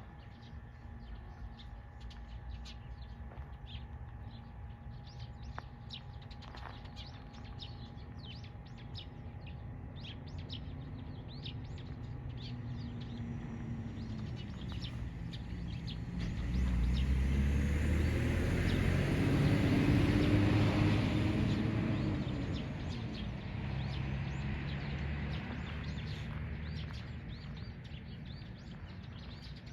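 Small birds chirping in quick short calls throughout. Partway through, a vehicle passes, swelling to the loudest sound for several seconds and then fading.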